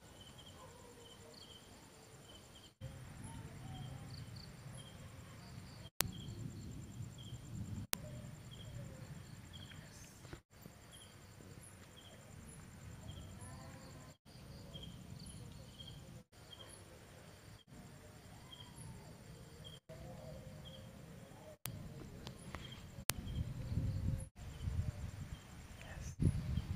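Night ambience of insects chirping in short calls repeated about once a second, over a low rumbling noise that grows louder near the end.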